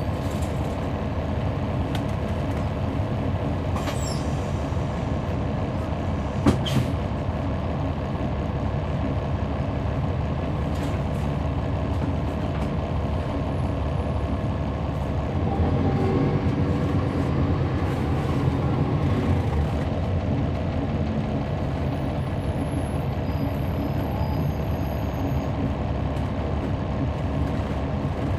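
Cabin sound aboard a 2011 NABI 40-SFW transit bus: its Cummins ISL9 diesel engine running steadily, growing louder for several seconds past the middle. A sharp clack about six and a half seconds in.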